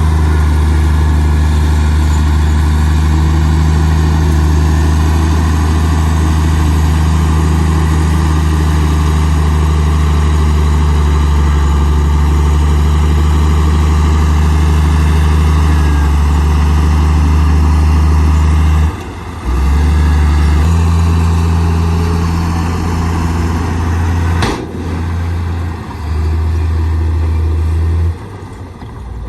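Heavy diesel engine of earthmoving machinery running steadily under load, a deep, loud drone that breaks off abruptly and changes a few times in the second half.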